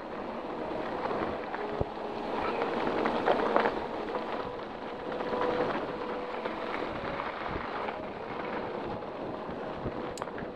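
Mountain bike rolling down a packed-dirt trail: tyres running over the dirt with wind rushing over the microphone, swelling and easing with speed, and a few short knocks from bumps.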